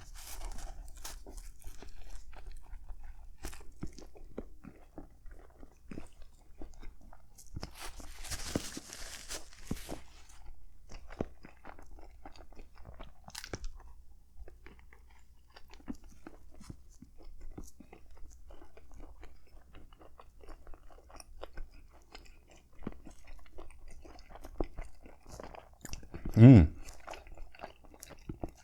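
Close-miked biting and chewing of a crusty hoagie roll filled with turkey, stuffing and cranberry: crunching with many small clicks, and a denser crunchy stretch about eight to ten seconds in. Near the end there is one short, loud vocal sound from the eater.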